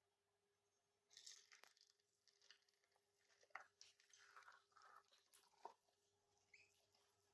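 Faint, irregular crackling and clicking of soft candy floss slime being scooped by hand, starting about a second in.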